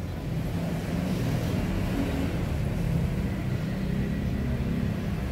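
A motor vehicle engine running with a steady low rumble, a little louder from about a second in.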